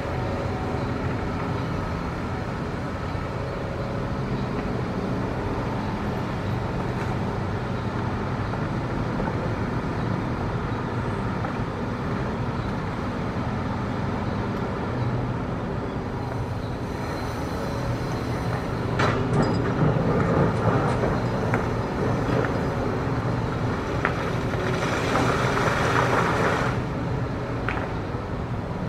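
Hitachi ZX210 excavator's diesel engine running steadily while digging hard rock, with two louder, rougher stretches about two-thirds of the way in and near the end, and a few sharp knocks.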